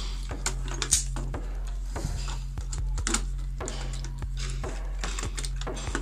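Irregular small clicks and taps of hands handling a plastic switchboard plate and the brass screw terminals of an electrical wall socket, over a steady low hum.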